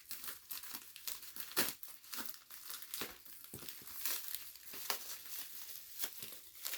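Packaging being opened by hand: irregular crinkling and rustling of wrapping with some tearing, and a sharper crackle about a second and a half in.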